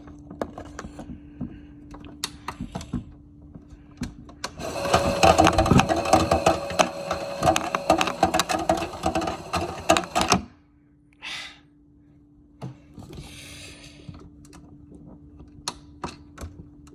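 Toy washing machine running with rocks in its drum, an off-balance load: a steady motor hum with scattered clicks, then about five seconds in a loud, dense rattling and clattering of the rocks for about six seconds that cuts off suddenly.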